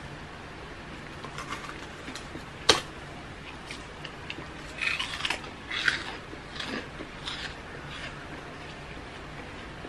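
Close-up eating sounds of a woman eating with her fingers from a stainless steel bowl: chewing, and fingers and food against the metal bowl. One sharp click comes about a quarter of the way in, and bursts of crisp, crunchy noise come around the middle.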